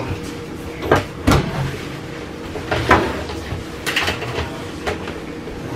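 A handful of short knocks and clunks as household items are picked up and set down on a wooden kitchen countertop during cleaning, over a low steady hum.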